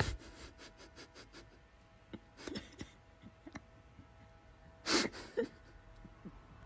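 Dog curled on its bed making short snuffles and mouth noises: a quick run of soft puffs at the start, a few more in the middle, and a louder huff about five seconds in.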